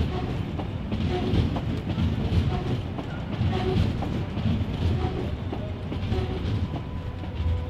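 Berlin U-Bahn train rolling slowly along a platform: a low rumble with wheels clacking over rail joints about once a second, and short faint squeals from wheels on rail.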